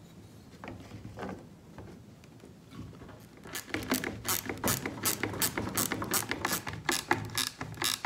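Ratcheting wrench clicking in quick, uneven runs as nuts are tightened onto the bolts of a blade guard bracket, starting about three and a half seconds in. A few faint knocks of handling come before it.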